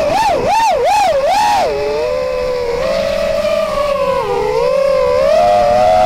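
FPV racing quadcopter's brushless motors (RMRC Blue Series 2600kv) and propellers whining, heard through the onboard camera. The pitch swings rapidly up and down with the throttle for the first couple of seconds, then holds steadier with slow rises and falls.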